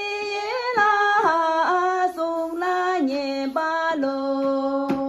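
Tibetan song playing: a female voice sings a melody of held notes that step up and down.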